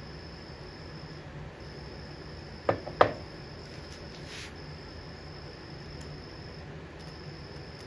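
Two sharp knocks about a third of a second apart, close to three seconds in, over a steady high-pitched trill that breaks off every second or two and a low steady hum.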